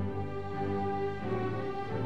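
Background music: slow orchestral strings, with the chord changing about a second in.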